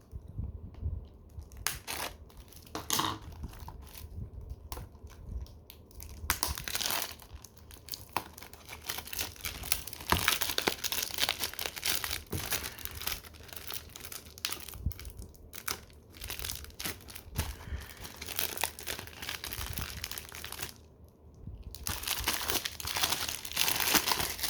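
Plastic shrink-wrap being torn and crumpled off a 4K UHD/Blu-ray case, crinkling in uneven spurts with a few short pauses.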